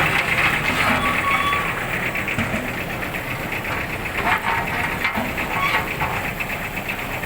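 Engine of road construction machinery running steadily with a fast, even knocking pulse.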